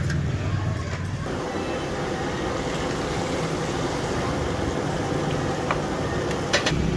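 Thin batter streaming through a perforated cup into hot frying oil, sizzling steadily from about a second in, with a couple of sharp knocks near the end.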